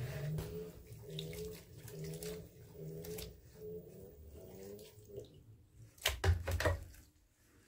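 Wet laundry being handled by hand in a basin of water in a bathtub: cloth sloshing and splashing, with the loudest splashes about six seconds in.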